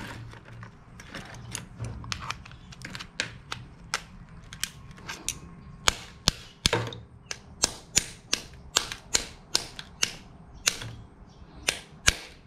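Cooked mud crab shell being cracked and picked apart by hand: a long run of sharp, irregular clicks and snaps, about two to three a second.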